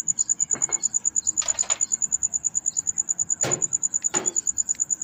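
Metal clinks and knocks of a timing-chain guide and chain being handled and fitted on a Toyota 2TR engine: a few separate knocks, the loudest two about three and a half and four seconds in. Under them runs a steady high-pitched pulsing chirp, about ten pulses a second.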